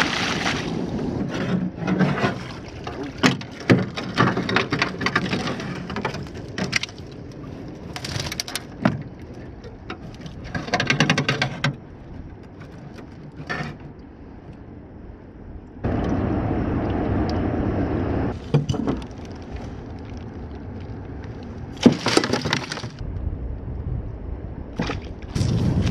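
Water splashing as a wire-mesh crab trap is hauled out by its rope, then the trap's wire frame and mesh clattering and knocking against the boat as it is handled, with many sharp irregular clicks and knocks.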